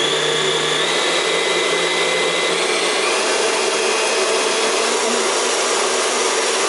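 Kenwood Chef KMC011 750 W stand mixer running with its K-beater in an empty bowl while its speed dial is turned up; the motor's whine steps higher a few times in the first three seconds, then holds at a high speed. It is quite loud and noisy.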